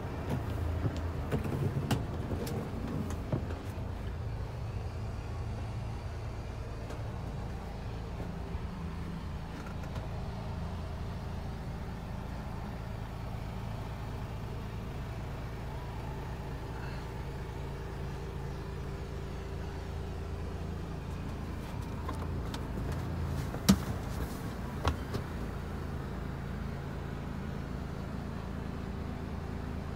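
Iveco Stralis truck's 460 bhp Euro 6 diesel engine idling, a steady low hum heard inside the cab. Two sharp knocks about a second apart come near the end.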